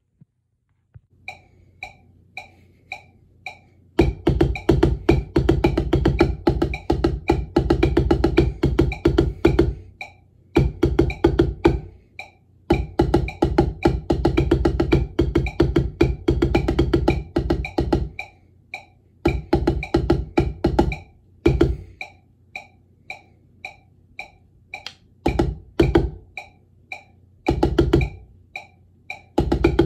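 Wooden drumsticks playing rudiment patterns on a Vater rubber practice pad, in time with a metronome clicking at 110 beats per minute. The metronome clicks alone for about three seconds, then the sticks come in and play in phrases of a few seconds with short rests between.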